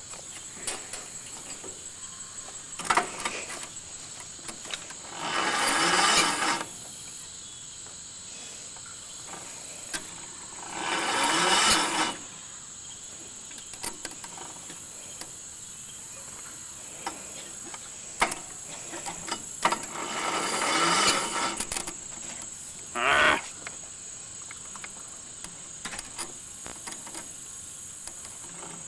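Small garden tractor engine being cranked in repeated short attempts, each a burst of about a second to a second and a half with a few briefer ones between, and it does not catch.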